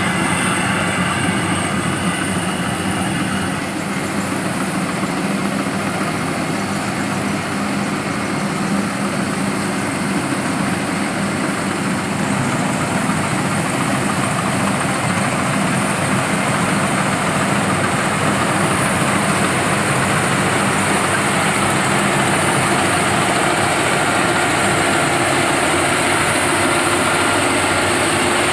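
Engine of a rice harvesting machine running steadily under load, a continuous dense mechanical drone.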